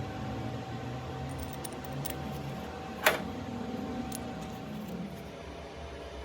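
Metal parts being handled on a bench: one sharp metal clink about three seconds in and a few faint ticks, over a steady hum.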